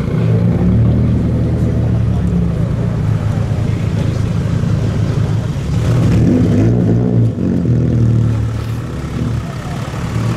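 Lowered Nissan Silvia S14's engine and loud exhaust as the car creeps past at low speed, with a brief rev about six seconds in.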